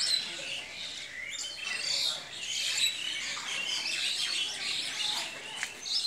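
Many small birds chirping at once, a dense chorus of quick high chirps and short trills overlapping one another.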